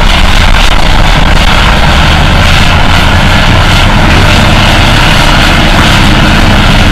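John Deere 850K crawler dozer's diesel engine running loud and steady under load as it pushes dirt.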